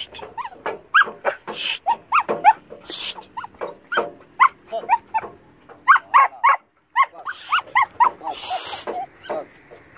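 Belgian Malinois giving rapid, high-pitched barks and yelps, several a second, as it leaps at its handler in excited bite play. There is a brief break about two-thirds of the way through.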